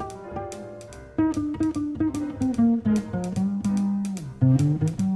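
Upright double bass played pizzicato in a jazz tune: a line of plucked notes, soft at first and louder from about a second in, stepping down in pitch to a note held for about a second, then moving to lower notes near the end.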